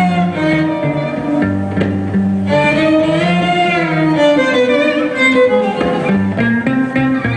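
Live band music without singing: a violin melody with vibrato, held and sliding notes in the middle, over plucked guitar and a stepping bass line.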